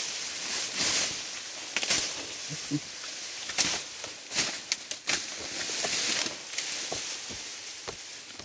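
Grass and stems rustling and crackling, with many sharp snaps scattered through a steady hiss.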